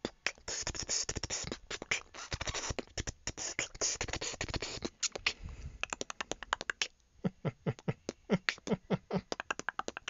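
Beatboxing: a fast run of mouth clicks and snare-like hits, then from about seven seconds in a string of short falling vocal 'boom' sounds, two or three a second.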